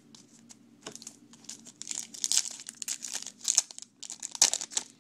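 Foil wrapper of a 2011 Topps Chrome baseball card pack crinkling as it is handled and torn open: a run of quick, sharp crackles, loudest about four and a half seconds in.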